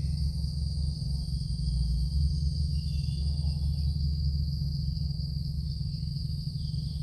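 Evening insect chorus: a continuous high, even trill that does not break, over a steady low rumble.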